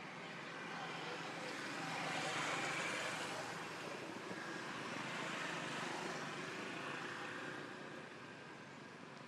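A motor vehicle passing at a distance: a rushing noise that swells over a few seconds and fades away near the end.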